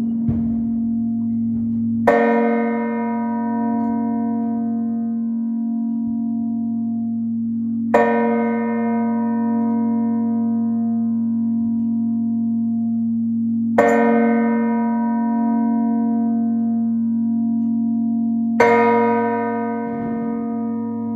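Church bells ringing the mota, the peal that marks the close of the feast. A bell is struck four times, about six seconds apart, and each strike rings on and fades over a steady low hum, with fainter clangs near the start and end.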